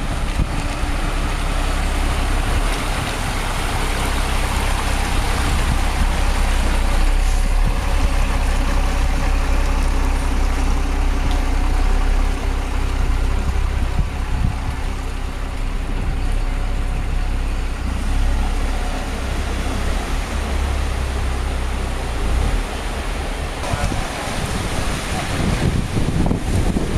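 Wind buffeting the microphone over the steady hum of a motor vehicle's engine.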